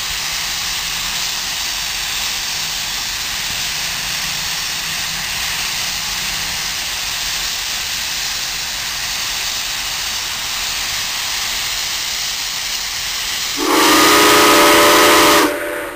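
Southern Railway 630, a 2-8-0 steam locomotive, standing and hissing steam steadily. Near the end its steam whistle sounds one loud blast, about two seconds long, with several notes at once.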